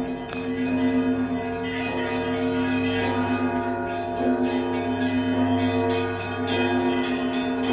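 Russian Orthodox church bells rung together (zvon): many quick strikes on the smaller bells over the steady hum of the larger ones.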